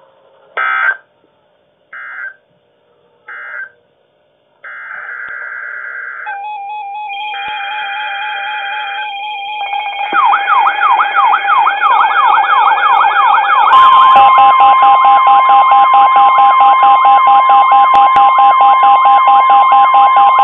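NOAA Weather Radio / EAS alert sequence. Three short data bursts (an end-of-message signal) are followed by longer SAME header data bursts announcing a new alert. Weather radios then set off stepped electronic alarm beeps and a fast rising-and-falling siren-like alert tone, and the steady 1050 Hz weather radio warning tone joins about 14 seconds in at full loudness.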